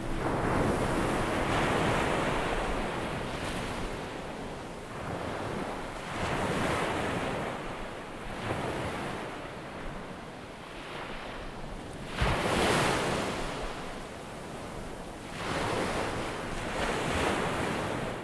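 Ocean surf: waves breaking and washing up a sandy beach, the rush swelling and falling back every few seconds, with the loudest wave a little past the middle. Wind buffets the microphone.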